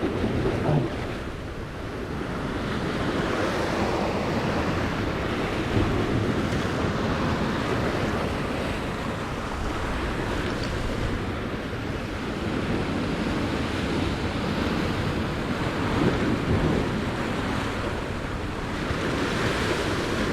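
Sea surf washing against rocks, with wind buffeting the microphone; the rush of water swells and eases slowly.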